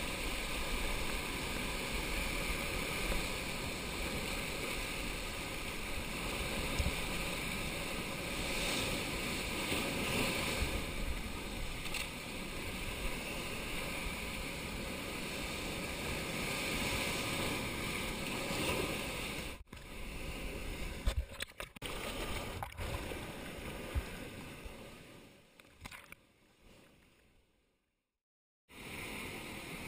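Rough sea surging and foaming through a narrow rocky gully, a steady wash of surf noise picked up by an action camera's microphone. The sound drops out briefly a few times in the second half and fades to silence shortly before the end, then returns.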